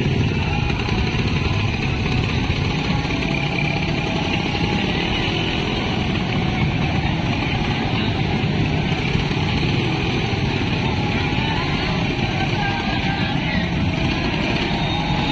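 Several motorcycle engines running at low speed in stop-and-go traffic, a steady mix of engine noise.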